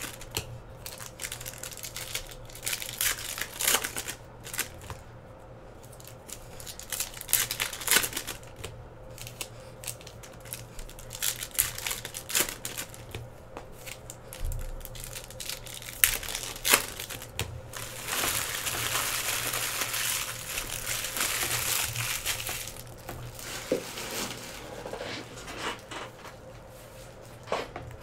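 Trading card packs being handled and opened: foil wrappers crinkling and tearing, with cards shuffled and tapped in many short rustles and clicks. About eighteen seconds in comes a longer, steady rustle lasting about four seconds.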